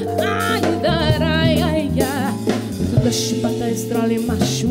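A woman singing long notes with a wide vibrato over a live soul-jazz band of electric bass, drum kit and congas.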